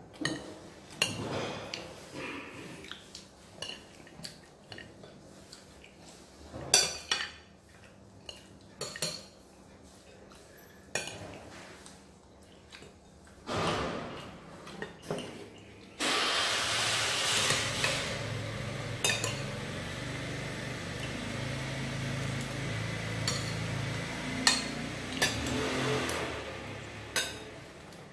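Metal spoons clinking and scraping on ceramic plates as people eat, in short irregular clicks. A little past halfway a steady rushing noise with a low hum starts suddenly under the clinks and fades out near the end.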